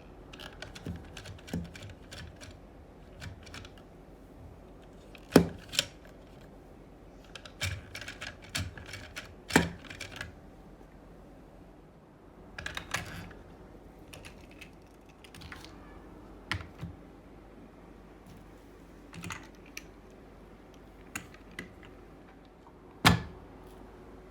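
Plastic toy vehicles being handled and played with: irregular light clicks and knocks, with a few louder knocks.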